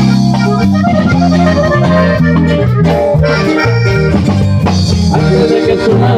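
Instrumental Latin band music with an accordion carrying the melody over a bass line and drums, before any singing comes in.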